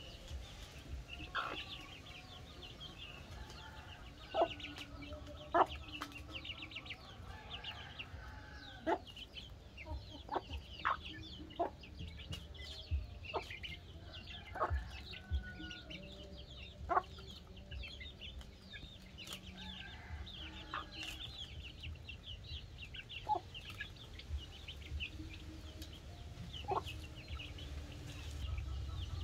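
Mother hen clucking while her brood of chicks peep constantly, many short, thin, high notes, as they peck at food together on the ground; the hen's sharper calls come every second or two.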